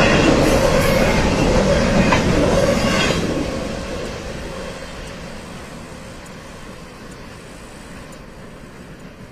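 Freight train cars rolling past on steel rails, wheels clicking over the rail joints with a faint steady ring of wheel on rail. About three seconds in the sound starts fading steadily as the train moves away.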